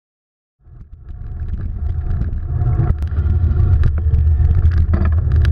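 Wind buffeting the microphone and rumble of a bicycle rolling over pavement, with scattered clicks and rattles from the bike. It fades in just over half a second in and grows louder.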